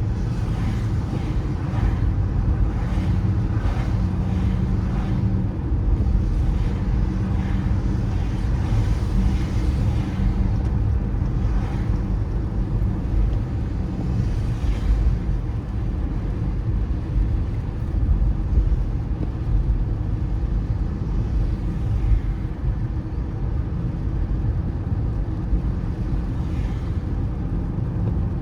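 Car driving on a wet road in the rain: a steady low rumble of engine and tyres with a wet tyre hiss. A steady hum is heard through the first part.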